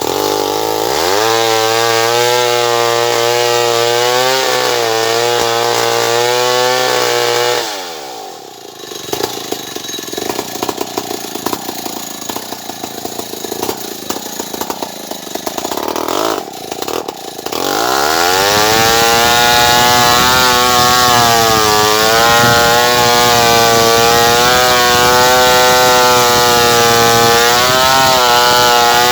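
Stihl 070 two-stroke chainsaw revved up to full throttle and held there, its pitch wavering under load. About seven seconds in it drops back to idle for about ten seconds, then revs up again and runs at full throttle to the end.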